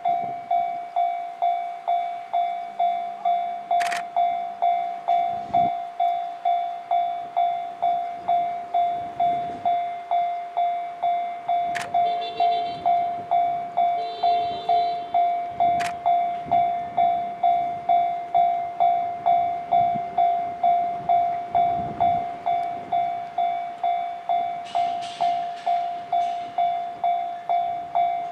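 Railway level-crossing warning bell ringing steadily, a single struck tone repeating about two times a second.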